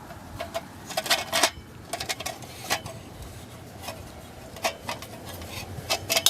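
Irregular sharp clicks and light metallic knocks, some with a brief ring, as a Coleman 243A lantern's metal parts are handled and turned.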